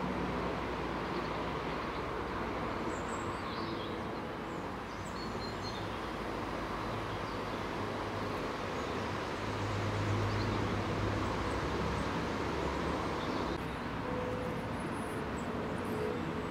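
Steady low rumble of distant road traffic, swelling a little about two-thirds of the way through, with a few faint bird chirps early on.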